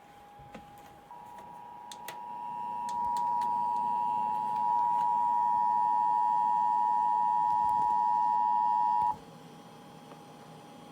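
Emergency Alert System attention signal: the steady two-tone alert tone sounding for about eight seconds, growing louder over its first few seconds and then cutting off sharply, announcing a civil emergency alert. A fainter single tone is heard before and after it.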